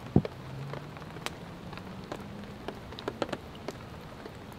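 Rain dripping onto a tarp overhead: scattered single drops over a steady soft hiss. Right at the start comes one sharp knock, the loudest sound, as a metal utensil strikes the pan on the firebox stove.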